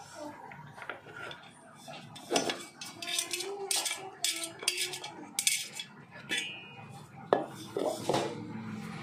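Stainless steel mixer-grinder jar and its blade assembly being handled: irregular metal clinks, scrapes and knocks, some with a short ring, the sharpest a little after seven seconds in.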